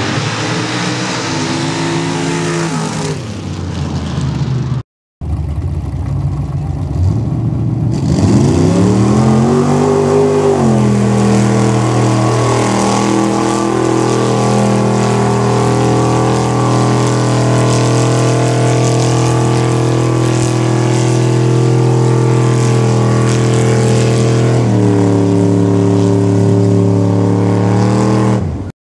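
Mud racing truck engine running, its pitch falling as it comes off the throttle about three seconds in, then a brief cut to silence. After that an engine revs up and holds steady revs for a long stretch, steps in pitch near the end, then cuts off.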